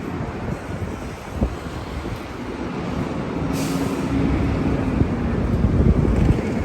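A heavy vehicle passing close in street traffic, its engine rumble building and then easing off, with a short hiss of air about three and a half seconds in.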